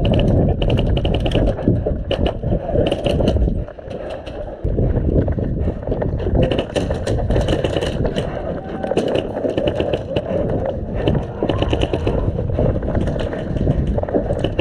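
Airsoft gun fired in several short full-auto bursts of rapid, evenly spaced clicks, over a heavy rumble of movement and handling noise on the camera microphone.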